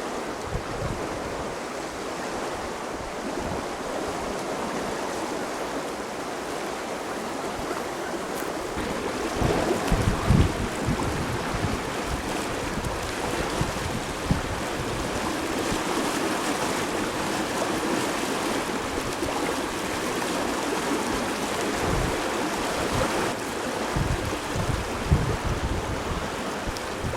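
Steady rushing of the Tagus river's flowing water at the Belver dam. Wind buffets the microphone in low gusts, most strongly about ten seconds in and again several times near the end.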